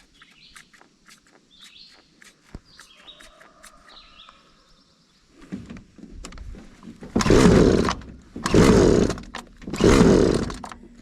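Husqvarna 326LD string trimmer's small two-stroke engine being pull-started: a weak pull about six seconds in, then three strong pulls about a second and a half apart, cranking without catching after a fuel-line repair. Birds chirp faintly before the pulls.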